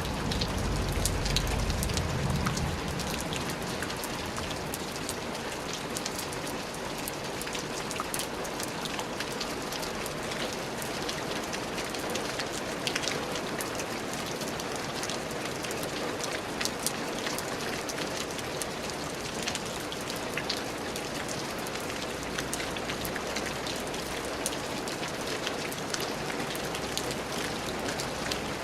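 Steady rain falling on a surface: an even hiss dotted with sharp ticks of single drops. A low rumble under it dies away in the first few seconds.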